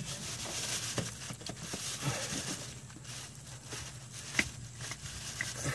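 A plastic bag crinkling, with scattered clicks and knocks, as the fuel filter of a 6.7 Cummins is unscrewed by hand and drawn out into the bag. A steady low hum runs underneath.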